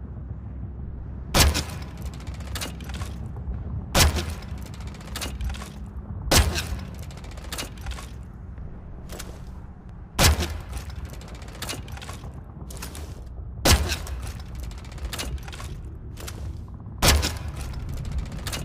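Crossbow shots: six sharp snaps a few seconds apart, each followed by a few quick smaller clicks, over a steady low rumble.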